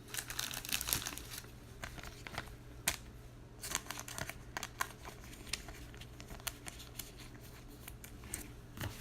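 Trading cards and their crinkly plastic wrapping being handled: a dense run of crinkles in the first second and a half, then scattered crinkles and sharp clicks.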